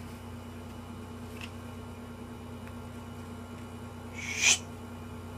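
Steady low electrical hum, with one short, sharp breath about four seconds in.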